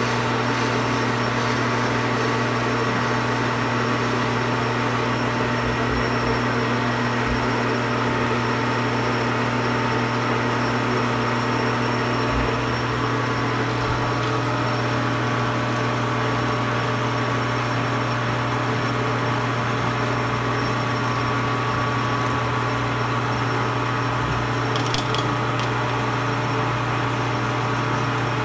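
Metal lathe running at a steady speed, a constant hum with several steady tones, as it cuts a plastic slide wheel.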